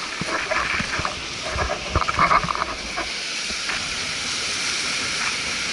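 Footsteps scuffing on sand with clothing rustle for about the first three seconds, over the steady hiss of small waves washing up the sandy shore, which carries on alone after that.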